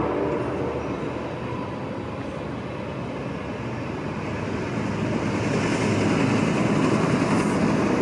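Sounder commuter train of bilevel coaches moving off along the tracks: a steady rumble of wheels on rail that dips slightly, then swells again with added hiss over the last few seconds.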